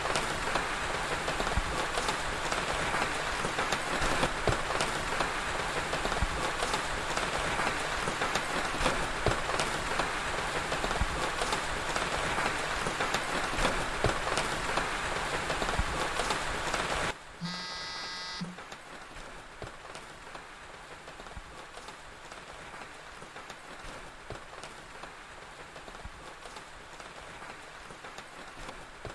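Steady rain, a dense hiss full of small drop-like ticks, that cuts off abruptly about 17 seconds in. A short electronic tone of about a second follows, then only a faint hiss.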